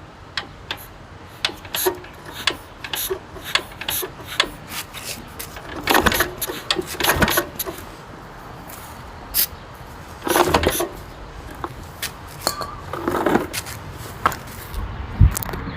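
Scattered clicks and metallic rattles, with a few longer rasping bursts, from hands working on a small engine with tools and parts. A low rumble starts near the end.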